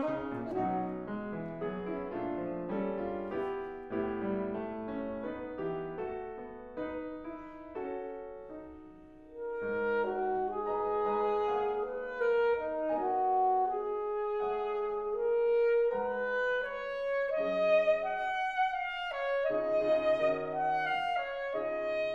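Alto saxophone playing a melodic line with grand piano accompaniment. The music thins out and grows quiet about eight seconds in, then swells back up sharply about nine and a half seconds in.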